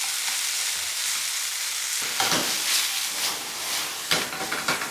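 Sliced chicken breast sizzling in hot oil in a frying pan. A nylon slotted spatula scrapes and knocks against the pan several times in the second half as the pieces are stirred.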